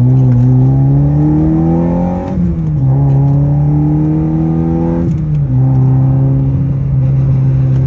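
9th-gen Honda Civic Si's 2.4-litre four-cylinder engine accelerating hard, heard from inside the cabin. The engine note climbs, drops at an upshift about two seconds in, climbs again, then drops at a second shift about five seconds in and runs at a steady pitch.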